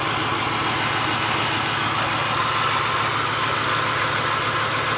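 Mercury Grand Marquis 4.6 V8 idling steadily with the hood open, running rough with a misfire.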